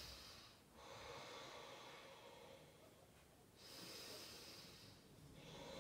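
Faint, slow, deep breathing by a person holding a stretch: long soft breaths in and out, one fading about a second in and another longer one a little past the middle.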